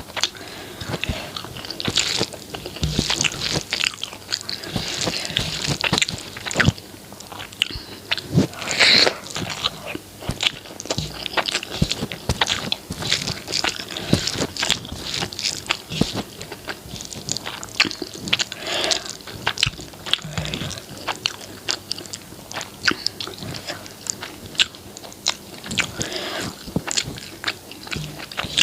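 Close-miked mouth sounds of a person eating a meal of rice, egg curry, shami kebab and roti: a steady, irregular run of chewing and biting with many sharp, crunchy clicks.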